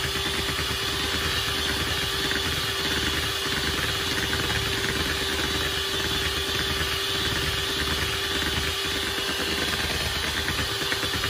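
Electric hand mixer running steadily at one speed, its beaters whipping a cream and condensed-milk mixture in a plastic bowl, with a constant motor hum.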